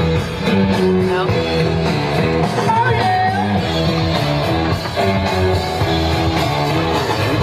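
Oldies rock and roll music with electric guitar and a steady beat, with a little singing.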